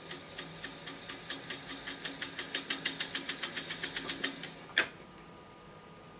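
Technics RS-1506U reel-to-reel deck fast-winding tape: a faint steady motor hum under a ticking that speeds up from about three to about seven ticks a second as the reels spin, ending with one louder clack near the end as the transport stops.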